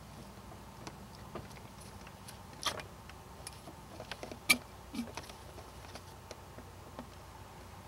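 Hand fluid syringe being emptied into a plastic water bottle: scattered small plastic clicks and taps of the plunger and bottle, the sharpest about two and a half and four and a half seconds in, as old power steering fluid is drained off.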